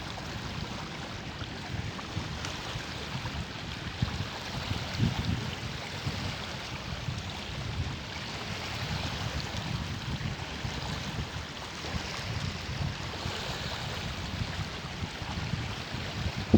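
Strong wind buffeting the microphone in uneven low rumbles over a steady rushing hiss.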